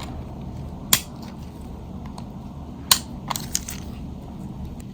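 Sharp plastic snaps and clicks as small parts of a Nokia 3350 are prised apart: two sharp cracks, about a second in and near three seconds, then a few lighter ticks.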